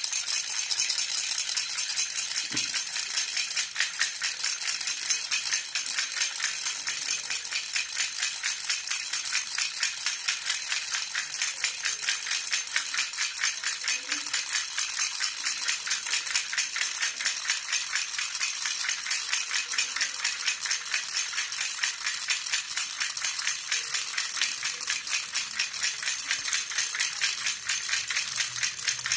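Silver baby rattle (jhunjhuna) shaken continuously and fast, an even, bright jingling clatter of small pieces inside a metal shell.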